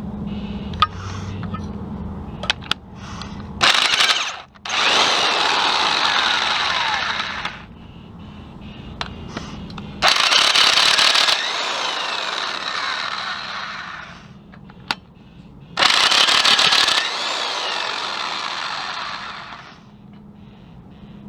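A power tool runs in three long bursts of about three to four seconds each, loosening fasteners on a 3.1L V6 engine being torn down. Each burst is loudest at its start and then eases off, with a few short clicks between the bursts.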